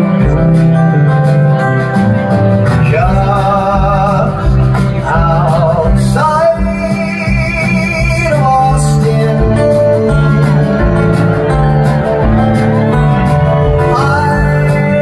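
Live band playing a country song: strummed acoustic guitar over a steady bass line, with a held, wavering lead melody rising over it a few times.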